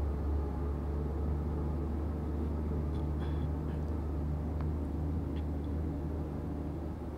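Steady low engine hum and road noise from the vehicle the recording is made from as it cruises along a paved road, with a few faint clicks in the middle.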